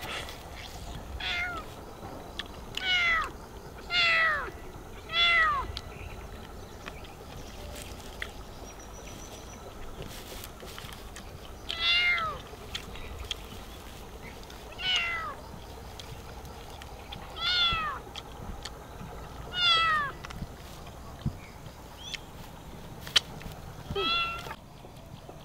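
A domestic cat meowing about nine times at irregular gaps, each call falling in pitch, begging for food. A single sharp click sounds near the end.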